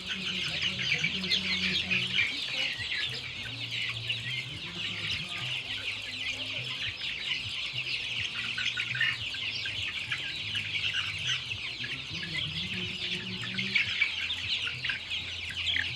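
A large flock of caged chickens clucking and calling all at once in a dense, unbroken chatter, with a steady low hum underneath.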